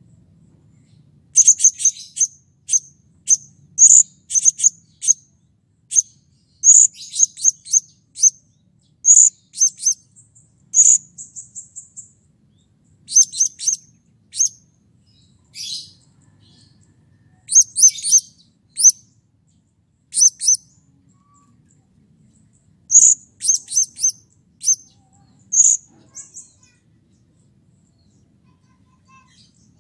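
Blue-crowned hanging parrot (serindit) calling: loud, shrill, very high-pitched chirps in quick runs of several notes with short pauses between. The calls stop a few seconds before the end.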